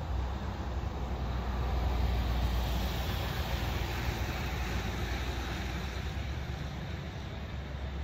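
Steady outdoor rumble and hiss, heaviest in the low end and swelling slightly about two seconds in.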